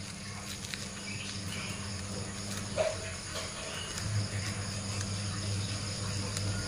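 Faint steady chirring of crickets with a low hum underneath, and a few soft crackles of dry bread being crumbled by hand in a stone mortar.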